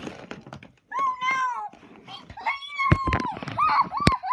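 High-pitched wavering cries: one long one about a second in, another after a short pause, then several short ones in quick succession, with a couple of sharp knocks near the end.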